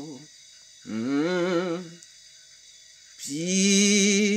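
A man singing a Creole worship song unaccompanied: a short sung phrase about a second in, then, after a pause, a long held note with vibrato near the end.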